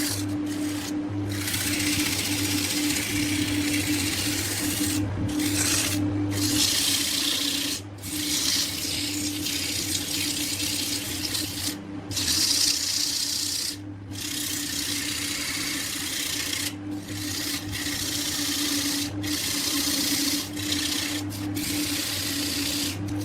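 Wood lathe motor humming steadily while a hand tool scrapes and hisses against the spinning wood. The hiss breaks off briefly many times as the tool comes off the work.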